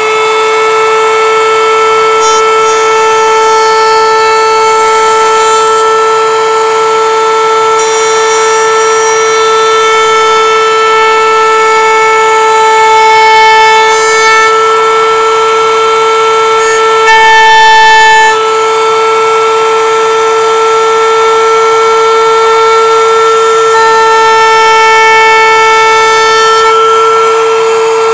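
Router table with a round-over bit running at a steady high-pitched whine as small wooden pieces are fed past the bit to round over their edges. The tone shifts briefly about two-thirds of the way through.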